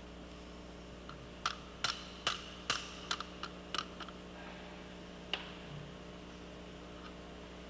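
Wrench working the lock clamping bolt on a Caterpillar D7F tractor's final drive bearing cage. It gives a run of about eight sharp, irregularly spaced clicks between one and a half and four seconds in, then one more a little after five seconds, over a steady low hum.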